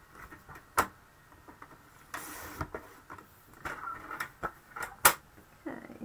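Card stock and craft tools being handled on a desk: scattered clicks and taps, with two sharp clicks, one a little under a second in and one about five seconds in, and a half-second sliding swish about two seconds in.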